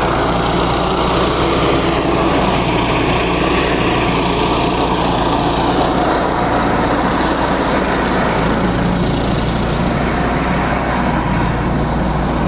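Motorised rice thresher running steadily, its small engine and threshing drum holding a constant speed.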